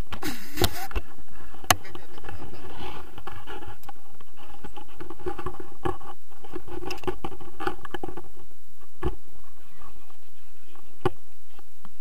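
Wind rushing and buffeting over an action camera's microphone in flight under a paraglider, with a few sharp knocks from the camera mount being handled.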